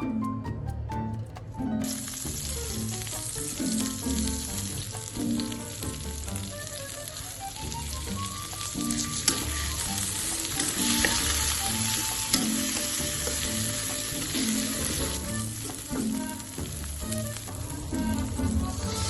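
Food frying in hot oil in a pan, a dense sizzle that starts suddenly about two seconds in, with occasional clicks of stirring. Background music plays throughout.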